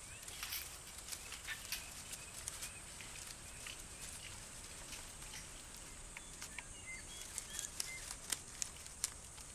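Faint forest ambience: a steady high insect drone, with scattered crackles and snaps of twigs and fig clusters as chimpanzees feed in the branches, a few sharper snaps near the end. A few short bird chirps come in around the middle.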